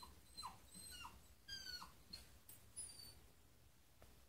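Cairn terrier whimpering softly in about six short, high whines, each dropping in pitch. The dog is eager, excited at the thought of going out.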